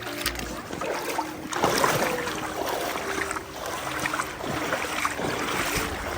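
Boat moving over water: a steady motor hum under irregular splashing and rushing noise.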